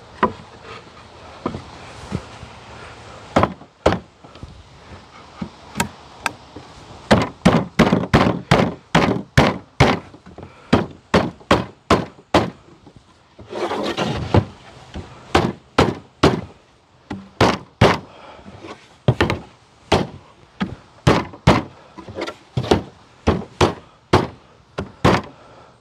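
Pine finger-jointed boards of a medium Langstroth hive box being knocked together at their box joints: a long run of sharp wooden knocks, many at about two a second.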